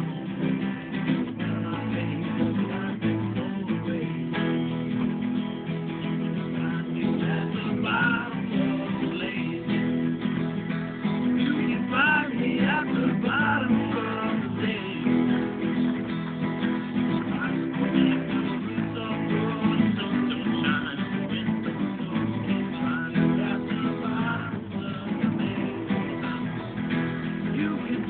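Two acoustic guitars strummed together in a steady accompaniment, with a man singing along at times.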